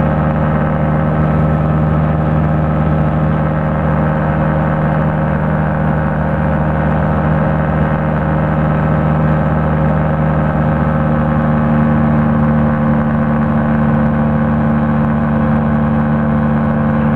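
Rotax 503 two-stroke twin engine of a light aircraft running steadily, a loud droning note that shifts slightly in pitch about eleven seconds in.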